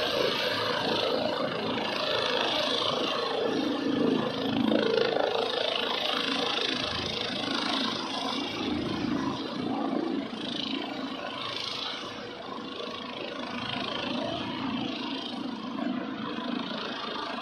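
Airbus Helicopters H135 P3 twin-turbine helicopter climbing away after take-off: steady rotor and turbine noise, loudest early and gradually fading as it moves off.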